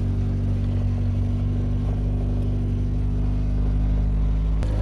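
A car engine runs steadily, heard from inside the cabin as a low, even drone. There is a light click near the end.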